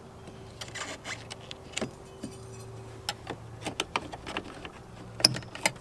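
Plastic door-trim access panel being pried off with a panel-popping tool: scattered small clicks, ticks and creaks of the plastic and its clips, with a few sharper snaps near the end as a retaining clip starts to let go.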